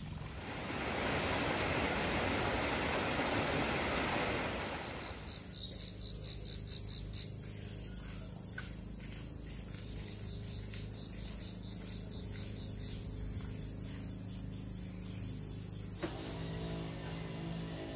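A few seconds of loud, even rushing noise, then insects chirping in a steady, high-pitched, pulsing drone.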